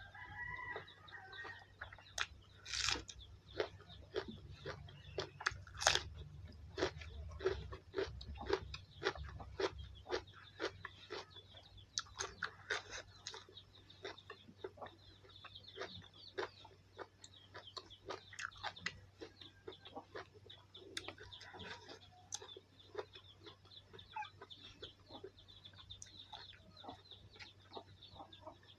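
Close-up chewing and crunching of food: many short, irregular crunches and wet mouth clicks, with a brief pitched call near the start and another around two-thirds of the way through.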